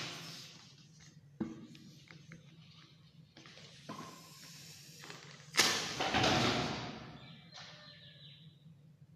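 A long latex modelling balloon let go to deflate, its air rushing out in spurts: short sudden bursts early on, then a loud rush about five and a half seconds in that fades away over about two seconds.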